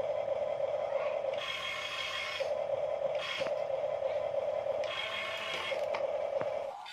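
Huina radio-controlled toy excavator's electric motors and gearboxes whirring as the boom and bucket move. The whine changes in segments each time a different function starts or stops, with a few light clicks, and it cuts off near the end.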